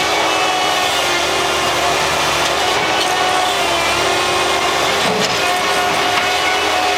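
Bobcat skid steer working concrete: a steady, loud mechanical din with a held whine running through it.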